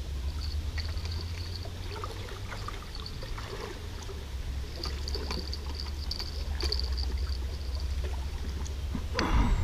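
Riverbank ambience: a steady low rumble of wind on the microphone, small trickling water sounds, and runs of high chirping that come and go. A short louder noise comes near the end.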